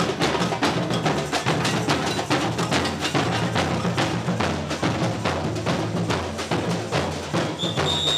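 Samba street percussion: drums beaten in a fast, dense rhythm over a deep, repeating bass-drum pattern. Near the end a single high whistle note is held for about a second and a half.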